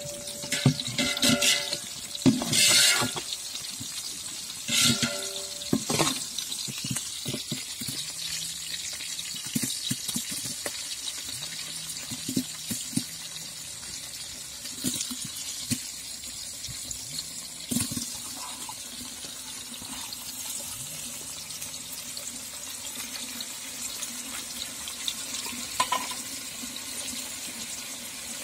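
Onions, mustard seeds and curry leaves sizzling in hot oil in an aluminium pot, a steady hiss. A metal ladle scrapes and clinks against the pot in the first few seconds.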